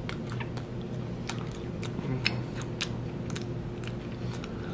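Close-up chewing of a crunchy white-chocolate Kit Kat wafer bar with the mouth closed: irregular crisp crackles as the wafer breaks, over a steady low hum.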